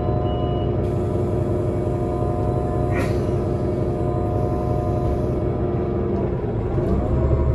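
The Cummins ISL G natural-gas straight-six of a Solaris Urbino 18 articulated bus idles steadily, heard from inside the bus. There is a short high beep at the very start and a brief hiss of compressed air about three seconds in. Near the end the engine note dips and then rises as the engine revs up to pull away.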